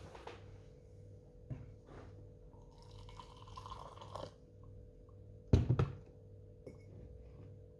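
Liquid poured into a container, its pitch rising slightly as it fills, then two or three sharp knocks, the loudest sounds, over a low steady hum.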